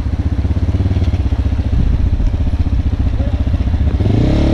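Adventure motorcycle engine running close by with a steady, fast pulse, then revving up about four seconds in as the bike moves off.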